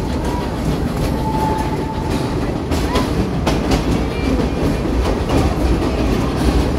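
Narrow-gauge park train running along the track, heard from an open-sided passenger coach behind its 4-4-0 replica steam locomotive: a steady rumble with the clickety-clack of wheels on the rails. There are a few sharp clicks near the middle and a faint brief squeal about a second in.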